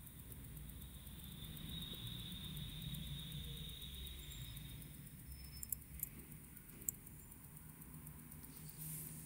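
Faint clicks of steel watchmaker's tweezers against tiny parts of a wristwatch movement as perpetual-calendar parts are fitted, three small clicks a little past the middle, over a low steady hum.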